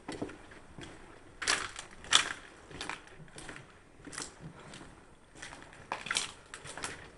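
Irregular crunching and scraping footsteps on a debris-strewn floor, with the sharpest crunch about two seconds in.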